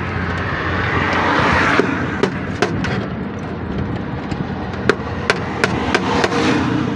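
Steady road-traffic and engine noise with a low hum, swelling to a louder rush about a second in, and a scattering of sharp clicks and knocks.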